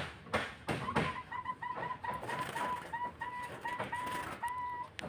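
Collared dove calling: a run of about a dozen short notes at one steady pitch, about three a second, the last held longer. Sharp knocks and rustles sound throughout.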